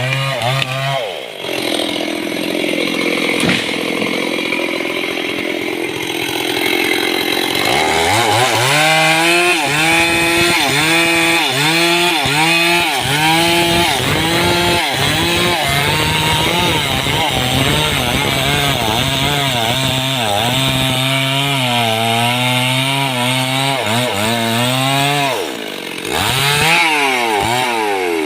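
Stihl chainsaw cutting into a mahogany trunk, its engine revs wavering and dipping as the chain bites into the wood. It drops back about a second in, then is throttled up again several seconds later and cuts steadily, easing off briefly near the end before revving again.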